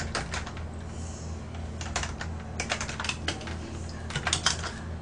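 Typing on a computer keyboard: irregular bursts of quick keystrokes, over a low steady hum.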